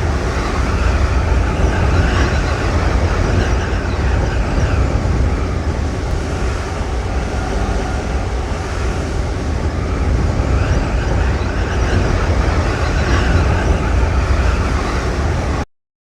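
Dragon Ball Z anime wind sound effect: a steady rush of wind over a deep rumble, with gusts that swell and ease in the upper range. It cuts off suddenly near the end.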